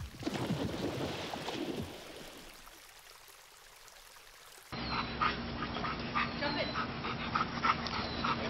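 A penguin dives off a wooden plank into water with a splash, and the water goes on splashing for about two seconds before it goes quiet. After a cut, a different outdoor recording with a steady low hum and scattered short clicks and chirps takes over.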